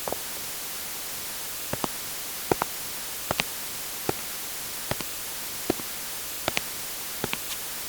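Footsteps walking at a steady pace on a hard surface: sharp heel-and-toe taps, often in pairs, about one step every 0.8 s, over a steady hiss.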